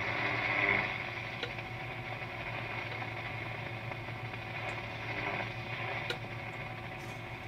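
Eddystone 840A valve shortwave receiver hissing with off-station static over a steady low hum as its tuning knob is turned, with no antenna connected. A couple of faint clicks.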